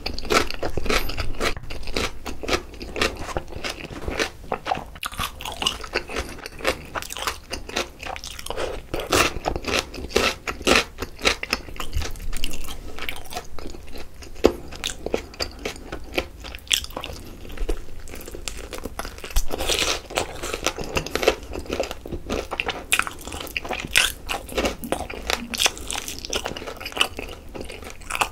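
Biting and chewing of yangnyeom (sweet-spicy sauce-glazed) fried chicken drumsticks, picked up close by microphones: irregular crisp crunches and chewing sounds, on and off.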